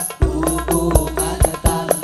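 Men's group singing an Islamic devotional song (sholawat) in unison into microphones, over drum strikes and a steady high ticking percussion beat.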